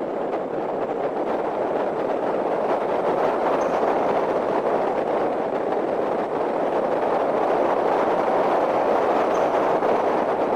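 Steady rushing tyre and wind noise of a Hyundai Genesis Coupe being driven at speed, swelling slightly partway through, with no clear engine note standing out.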